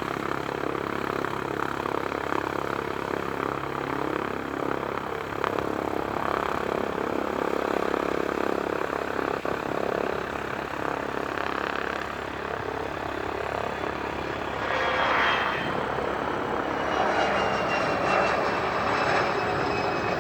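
Bombardier CRJ-200 regional jet's twin GE CF34 turbofan engines at takeoff power: a steady rushing roar. Over the last few seconds a high whine slides down in pitch.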